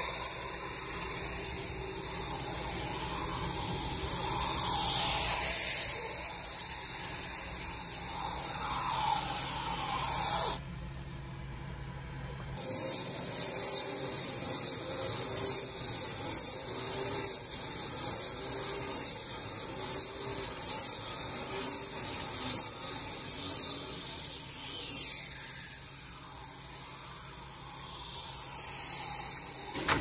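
Fendt combi baler's bale wrapper winding silage stretch film around a round bale. The film hisses as it is pulled on. For much of the time a regular whoosh comes about one and a half times a second as the wrapping arm sweeps past.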